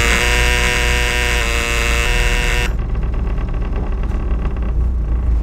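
A helm-panel warning buzzer sounds loudly for about two and a half seconds while the engines are being started, then cuts off. Under it, and on after it, the boat's diesel engines rumble steadily.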